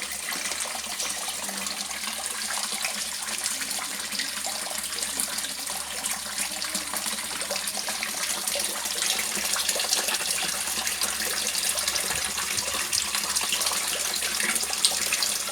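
Water splashing and trickling steadily into a koi pond.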